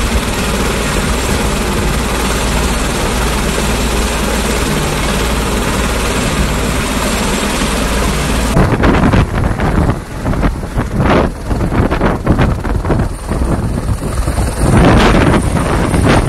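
Helicopter flying: a steady, dense engine and rotor noise. About halfway through the sound changes abruptly to uneven, surging rumbles.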